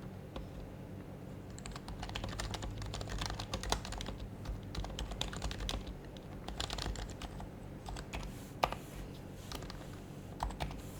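Typing on an HHKB Professional HYBRID Type-S keyboard with silenced Topre electrostatic-capacitive switches. The keys go in quick runs with short pauses between them, and one sharper keystroke comes near the end.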